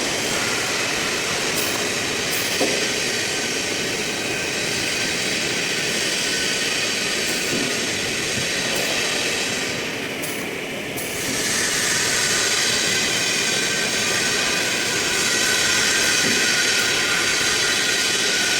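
Blue Elephant ELECNC1836 CNC nesting router running, with a steady high spindle whine over a rushing cutting noise. It dips briefly about ten seconds in, then comes back a little louder with a clearer whine.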